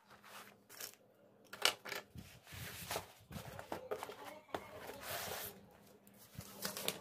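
Books and paper sheets being handled and moved about on a table: scattered light knocks and paper rustling, with a longer rustle or slide about five seconds in.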